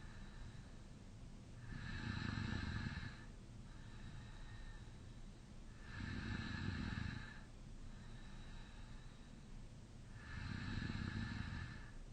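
A man snoring in deep sleep with his mouth slightly open: three snores about four seconds apart, each lasting about a second and a half. Between the snores, a faint high whistle through the nose.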